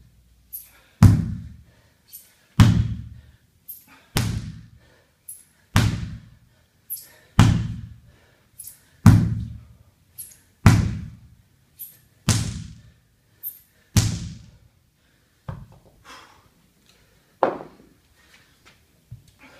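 Sledgehammer striking a large Michelin tractor tire in steady rhythm, nine heavy thuds about a second and a half apart, followed by two lighter knocks near the end as the hammering stops.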